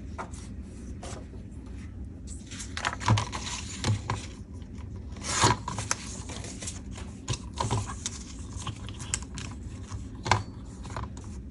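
Magazine paper being cut and handled: rubbing and scraping, with a handful of short sharp clicks, the loudest about five and a half seconds in.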